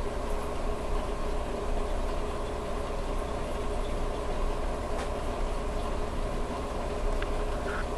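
Steady mechanical hum and water rush of a reef aquarium's running pumps and circulating water.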